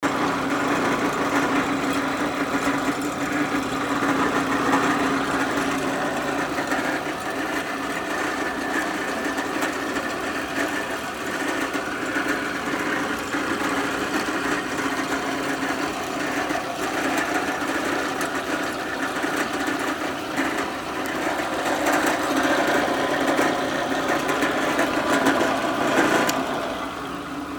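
Enco drill press running steadily: its electric motor and belt-driven spindle give a constant hum with a whirring rattle over it. Near the end the level drops as it begins to wind down.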